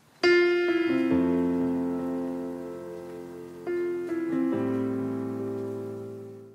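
Slow solo piano music: chords struck and left to ring and fade, a second phrase beginning about halfway through, dying away at the end.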